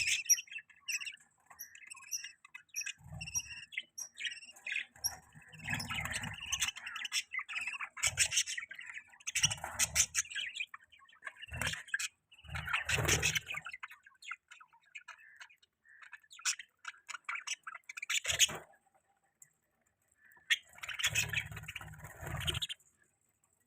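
Budgies chirping and chattering in short bursts, separated by brief pauses, with a few low muffled thuds under some of the bursts.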